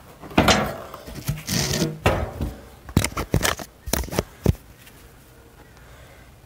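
Camera being grabbed and repositioned by gloved hands: rubbing on the microphone in the first two seconds, then a run of sharp knocks and clicks, settling quiet after about four and a half seconds.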